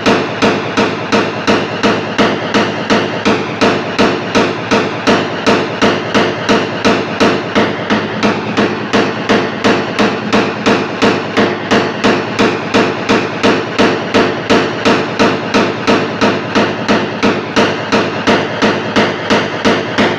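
Small hammer rapidly tapping a knockdown punch against a car's sheet-metal panel in paintless dent repair, a steady run of sharp metallic taps about two to three a second, levelling the finish of the repaired area.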